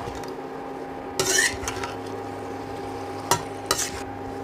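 Metal spatula scraping and knocking in an iron kadhai as boiled potatoes, cauliflower and peas are pushed in from a plate and stirred into the masala, with a scrape about a second in and two sharp knocks near the end. Under it runs the steady hum of an induction cooktop.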